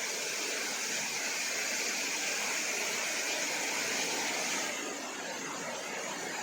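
Rain falling, a steady hiss that eases a little about two-thirds of the way through.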